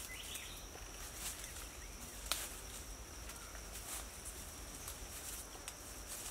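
Footsteps through dry leaf litter and undergrowth, with scattered crackles of leaves and twigs and a sharper snap a little over two seconds in, over a steady high insect buzz.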